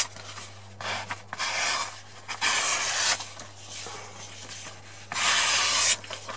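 Spyderco Manix 2 XL folding knife's S30V blade slicing through a sheet of paper in several long strokes, the loudest about five seconds in. The blade is on its factory edge, which is being tested by these cuts.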